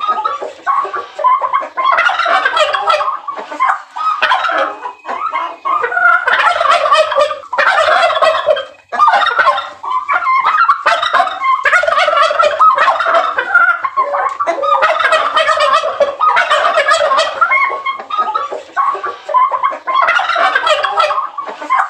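Male turkeys gobbling again and again, rattling calls following one another every second or two. This is the tom's breeding-season call to draw hens.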